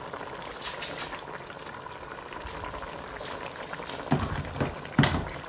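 A pot of Edikaikong vegetable soup boiling, with a steady bubbling and crackling. Near the end, a few dull knocks, the loudest about five seconds in.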